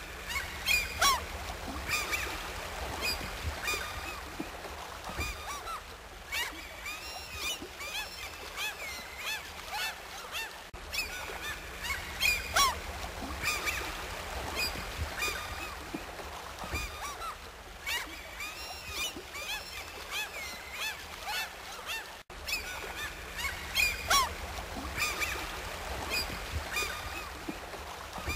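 A flock of waterfowl honking and calling many times over, with a steady low rumble beneath. Brief cuts about 11 and 22 seconds in, after which the same stretch of calls seems to start over, as in a looped recording.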